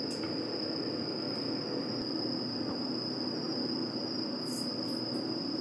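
Induction cooktop running with a steady high-pitched whine over a low hum, heating a pot of boiling udon and a pan of frying oil. A few faint ticks come about four and five seconds in.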